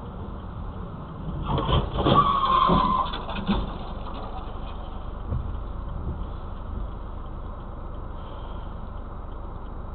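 Car crash heard from a dashcam inside a car: a cluster of bangs and crunches of impact from about one and a half to three and a half seconds in, with a brief falling squeal among them. Steady road and engine noise runs on afterwards.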